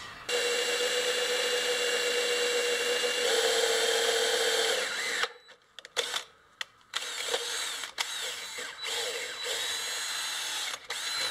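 DeWalt cordless drill boring a hole into a metal block. It runs steadily for about five seconds, its pitch stepping up partway, then stops and runs again in shorter, quieter bursts.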